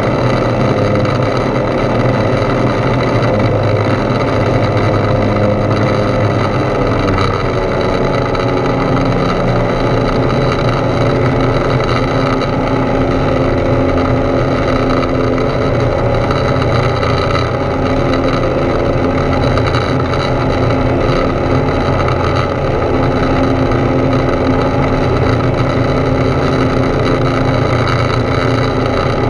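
Foxbat A22LS light aircraft's Rotax 912 flat-four engine and propeller running steadily in flight, heard from inside the cockpit together with the rush of the airflow. The engine note shifts slightly about seven seconds in.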